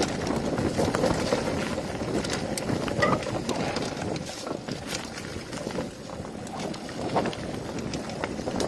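Mountain bike being ridden over rough ground: tyre noise with the bike rattling and knocking over bumps.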